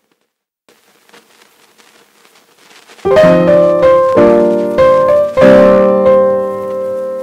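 Background piano music: near silence for the first three seconds, then a run of struck piano chords about a second apart, each ringing and fading.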